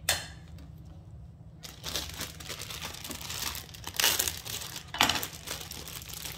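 A sharp knock at the start, then a thin plastic bag of baby carrots crinkling and rustling as it is cut and torn open with a knife, with two louder crinkles in the second half.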